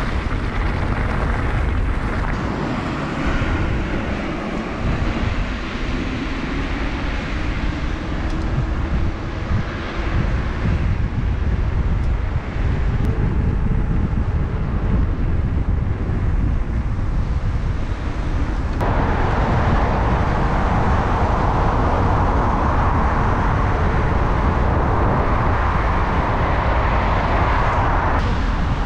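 Wind buffeting the action-camera microphone and an electric mountain bike's tyres rolling fast over the trail: a steady rumbling noise. About two-thirds of the way in, a brighter hiss sets in abruptly and cuts off shortly before the end.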